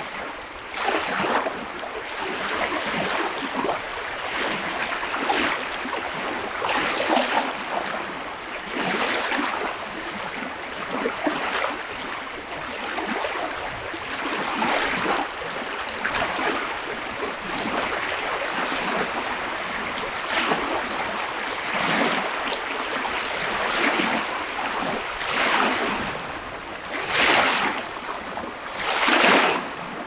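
Small sea waves breaking and washing up a beach: a steady hiss of surf that surges every second or two, with two louder washes near the end.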